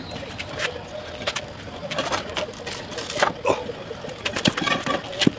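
A heavy, weathered wooden post being shifted and walked upright over ground and pavers: a string of irregular wooden knocks and thumps, the loudest a few seconds in and just before the end.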